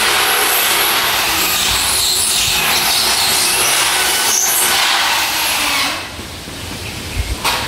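Corded power drill running steadily as it drills overhead into the top of the door opening for a sliding door, stopping about six seconds in.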